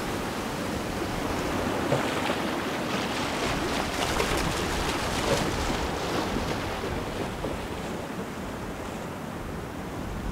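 Small sea waves washing against the shore, a steady rush of water that eases off after about seven seconds.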